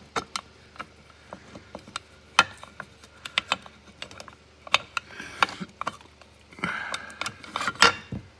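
Steel shift forks and the horseshoe interlock of a Tremec T5 transmission's shift cover clicking and clinking as they are worked into the shift rail block by hand: irregular light metal clicks, a short scraping rub about seven seconds in, and a louder clack near the end.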